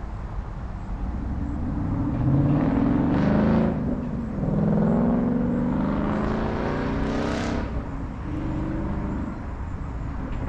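A car accelerating hard past, its engine revving up, dropping back at a gear change about four seconds in, then revving up again before easing off.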